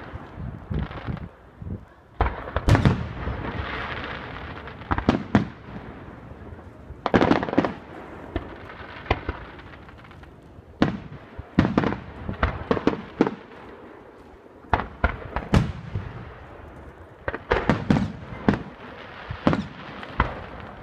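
Aerial fireworks bursting: a string of sharp bangs at irregular intervals, some with crackling that trails off after them, in clusters about every few seconds.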